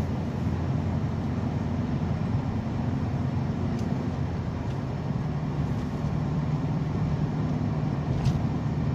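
A car driving at highway speed, heard from inside the cabin: a steady engine hum under even tyre and road noise.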